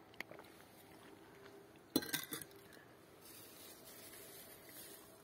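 A quick cluster of hard clinks and knocks about two seconds in, after a single sharp click near the start, over faint background hiss.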